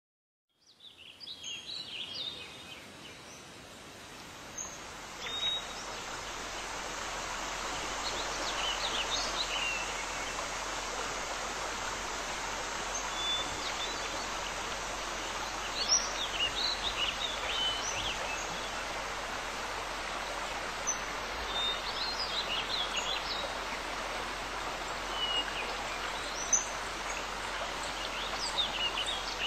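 Flowing stream water, a steady rushing hiss that fades in over the first several seconds, with songbirds chirping over it now and then.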